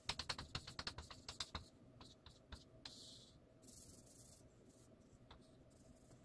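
Chalk writing on a blackboard: a quick run of about a dozen sharp taps and clicks in the first second and a half, then a few scattered taps and two short scratchy strokes around the middle.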